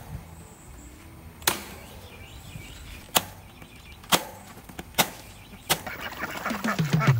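Corded electric staple gun driving staples through welded-wire fencing into wooden posts: five sharp snaps at uneven intervals about a second apart. Music comes in near the end.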